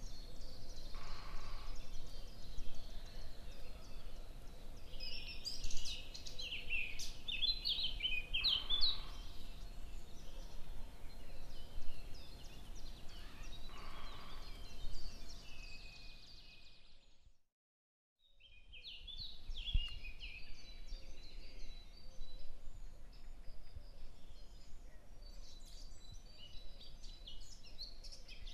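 Small birds chirping in quick, busy calls over a steady low background noise. The sound fades out to a second of silence about two-thirds of the way through, then the chirping comes back.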